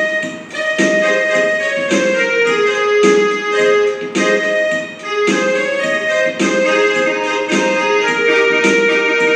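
Portable electronic keyboard playing a film-song melody with both hands: sustained single-note melody over chords struck in a steady rhythm.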